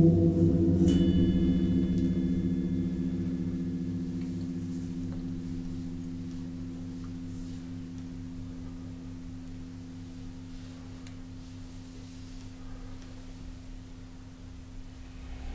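Resonator of a Cristal Euphonic instrument ringing with a deep tone of several pitches, struck or excited just before and dying away slowly. About a second in, a brief higher metallic ping rings over it.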